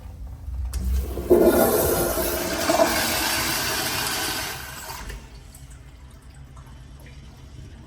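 Public restroom toilet flushing: a click of the handle, then about three seconds of loud rushing water that tapers off and stops about five seconds in.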